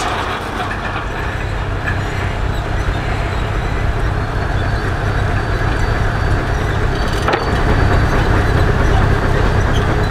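Steam-powered portable sawmill running, its saw cutting through a log with a steady rasping noise over a low rumble. A single sharp crack comes about seven seconds in, and the rumble grows louder after it.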